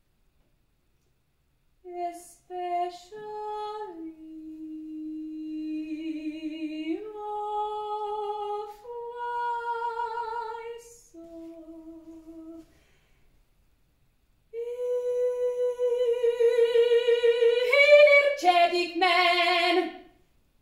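Solo female voice singing unaccompanied in a free improvisation: long held notes with vibrato, separated by short breaths and pauses. It grows louder and more agitated near the end.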